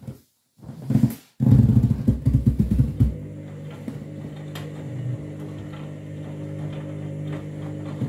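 Front-loading washing machine at the end of its main wash, the drum motor turning the wet load. There is a loud, rough rumble for the first three seconds, then it settles into a steady motor hum.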